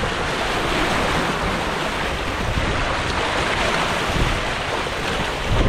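Steady rush of sea water churning along the hull and wake of a sailboat under way, with wind buffeting the microphone.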